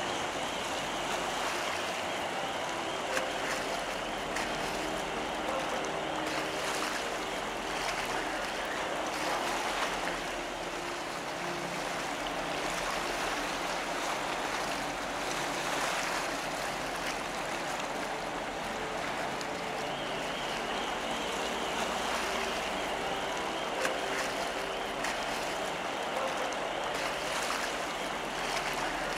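Car ferry Wight Sun passing close by: a steady rush of water churned along its hull and wake, with the low hum of its engines underneath. A faint high whine is heard near the start and again in the last third.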